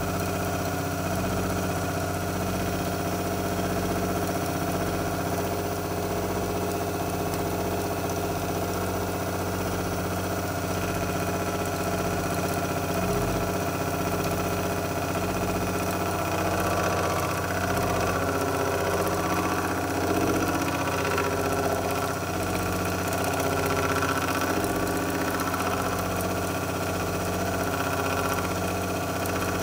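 CTV36 drill-milling machine running with its face-milling cutter at about 1000 rpm: a steady motor and spindle hum with several steady tones, growing rougher from about halfway in.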